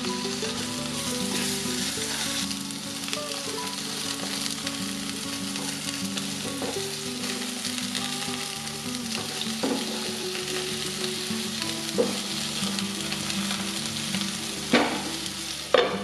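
Brinjal pieces sizzling as they fry in hot oil in a nonstick pan. A wooden spatula knocks against the pan a few times, more often near the end.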